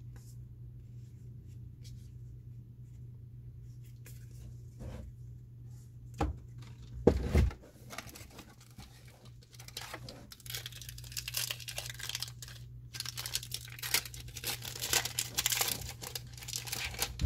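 A few loud knocks of handling about six and seven seconds in, then from about ten seconds a booster pack's foil wrapper being torn open and crinkled.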